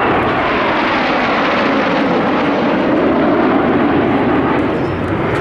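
Kawasaki T-4 jet trainer's turbofan engines heard in a passing flyby: loud, steady jet noise with its pitch gliding downward as the aircraft goes by.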